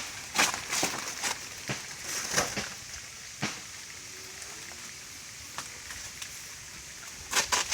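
A banana tree's soft, fibrous trunk being cut with a blade: crisp chopping and crunching strikes, several in quick succession in the first few seconds and another short flurry near the end.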